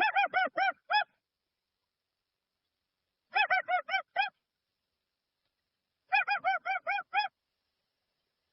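Dusky-legged guan (jacuguaçu) calling: three bursts of five or six short, rapid notes, each burst about a second long, a couple of seconds apart.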